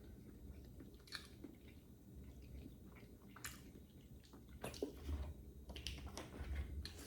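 A person chewing and biting into a slice of Hawaiian pizza, with faint wet mouth smacks now and then.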